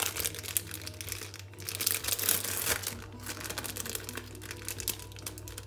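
Thin plastic film crinkling as it is peeled off an individually wrapped cheddar cheese slice, in irregular crackly bursts, loudest about two seconds in.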